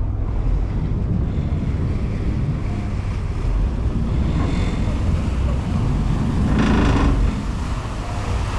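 Ferry running with a steady low engine rumble under the rush of water and wind buffeting the microphone. A brief louder rush comes about six and a half seconds in.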